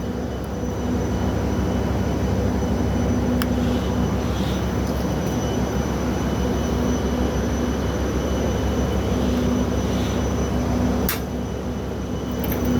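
Steady machinery drone of an industrial plant, a low rumble with a hum and a faint steady high tone over it, broken by a sharp click about three seconds in and another near the end.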